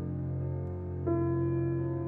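Slow instrumental background music of held notes, with a new note coming in about a second in.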